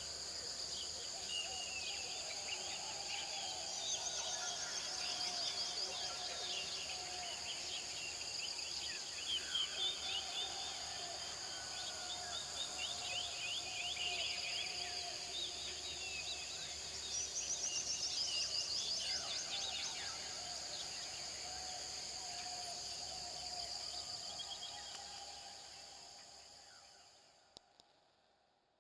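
Outdoor nature chorus: insects droning steadily at a high pitch while birds chirp and trill over them, fading out near the end.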